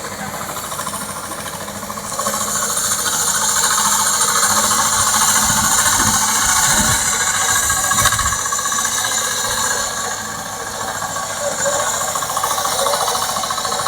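Combine harvester running steadily, its engine and machinery noise swelling about two seconds in and easing off again near ten seconds.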